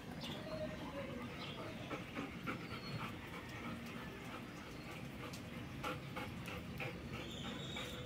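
Golden retriever whining softly in short, high whines, with scattered light clicks.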